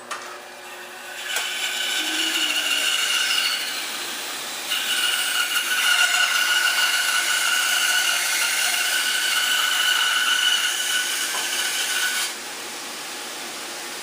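Bandsaw running and cutting a thin slice off a block of wood: a steady whine over rasping sawing noise. The cut eases for a moment about four seconds in, then goes on, and stops about twelve seconds in.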